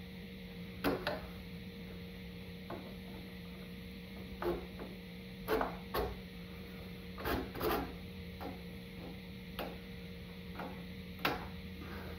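Screwdriver clinking and scraping against the motorcycle's steel side stand, spring and cable as it levers the kickstand return spring into place. About a dozen short, irregular metal knocks over a steady low hum.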